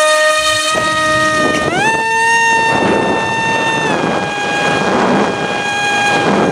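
RC model airplane's motor and propeller whining, heard from a camera on board in flight; the pitch steps up about two seconds in, then drops at about four seconds and again near the end as the throttle changes. Wind rushes over the microphone from about three seconds on.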